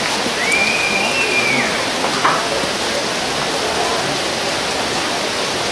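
Steady rushing roar of the Ouzoud waterfall. A single short whistle-like note rises, holds and falls about half a second in.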